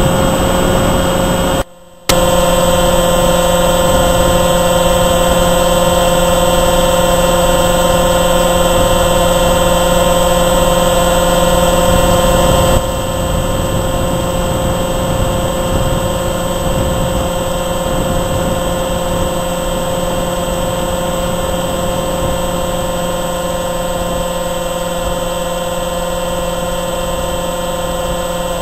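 RC model F-22 Raptor profile plane's motor and propeller running at a steady speed, heard through the camera mounted on the plane: a steady whine with several fixed tones over rushing air noise. The sound cuts out for a moment about two seconds in, and steps down slightly in level about halfway through.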